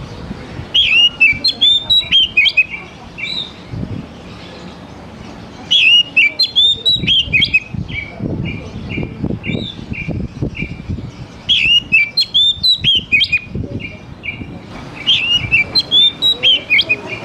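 Oriental magpie-robin singing in four phrases, each a burst of quick rising and falling whistled notes that ends in a run of short repeated notes.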